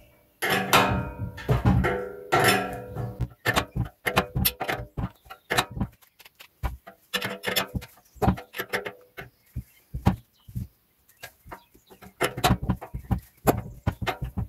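Irregular metal clinks and knocks of open-ended spanners working the nuts of a threaded bush-press tool, wound by hand to press a rubber-metal axle bush slowly into its arm.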